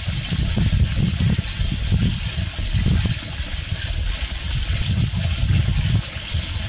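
Wind noise on the microphone: irregular low rumbling gusts over a steady rushing hiss.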